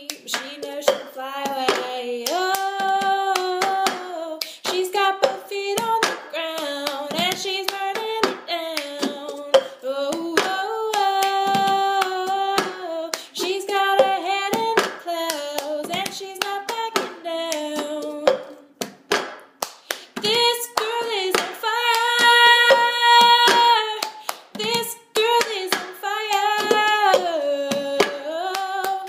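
Solo female voice singing a pop melody in held, stepping notes, with sharp hand claps or slaps keeping the beat throughout, in a small room.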